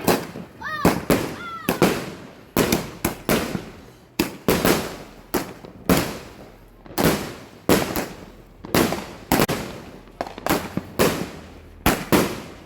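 King of Flames 260-shot firework cake firing a rapid string of shots, about two a second, each report trailing off. There are two rising whistles near the start.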